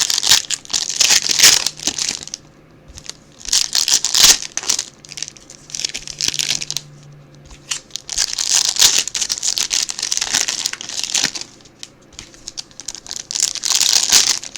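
Plastic trading-card pack wrappers crinkling and being torn open, in repeated bursts of a second or more with short pauses between.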